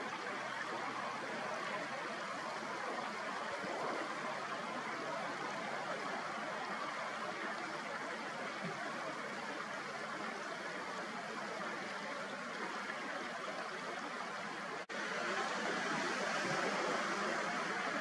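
Steady rush of flowing river water, an even hiss with no distinct events. The sound drops out for an instant about fifteen seconds in, then carries on slightly louder.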